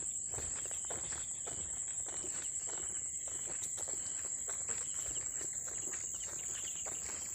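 Footsteps of a person walking, an irregular run of short rustling steps, over a steady high-pitched drone of insects.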